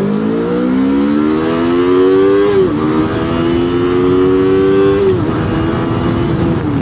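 Yamaha R3's parallel-twin engine with its stock silencer, pulling hard under acceleration. The engine note climbs steeply, drops at an upshift about two and a half seconds in, climbs more slowly in the next gear, then drops at further upshifts about five seconds in and again near the end.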